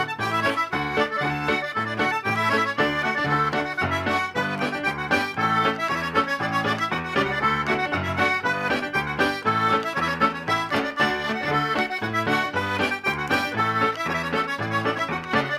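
Traditional Québécois reel played briskly on accordion, with piano accompaniment underneath.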